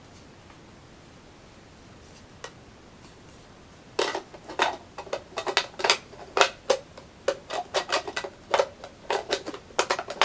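Unboxing handling of a small electric coffee grinder and its packaging: one faint click about two and a half seconds in, then from about four seconds a fast, irregular run of sharp clicks and crackles.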